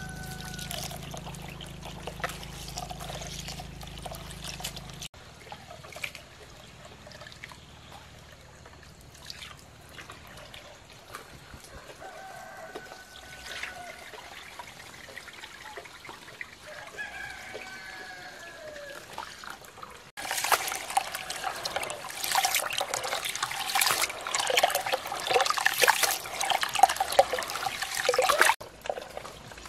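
Water running from a hose into a plastic basin of sticky rice while hands stir and rub the soaking grains. The loudest part is a spell of close splashing and swishing from about 20 seconds until shortly before the end. Roosters crow a few times in the background.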